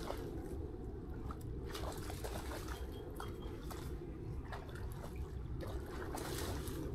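Faint splashing and trickling of shallow lake water as a dog wades near the shore, with scattered small splashes over a steady low rumble.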